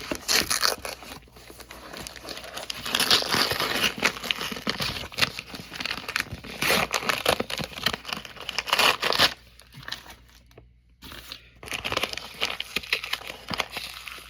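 Paper packaging wrapper being handled and crumpled by hand, a dense irregular crinkling and rustling that pauses for a couple of seconds and then starts again near the end.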